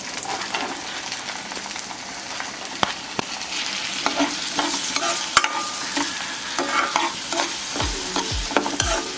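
Chopped onion, garlic and ginger sizzling in hot butter in a nonstick kadai, stirred with a steel spoon that scrapes and taps against the pan. Near the end the stirring settles into a steady stroke about twice a second.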